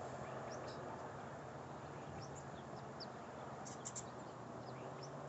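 Small birds chirping now and then, short high chirps with a few close together near four seconds in, over a faint steady background hum.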